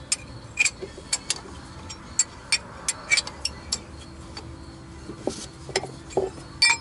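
Box-end wrench clinking on a nut welded to a broken exhaust manifold stud as the stud is worked out in short swings, the wrench lifted off and refitted each time. The sound is a series of irregular sharp metallic clicks, the loudest near the end.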